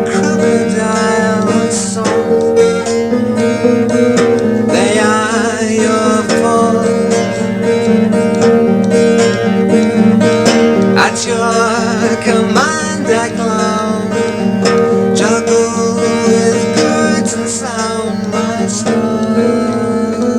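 Baldwin 712 twelve-string semi-acoustic guitar played unamplified, its chords ringing on continuously through a song.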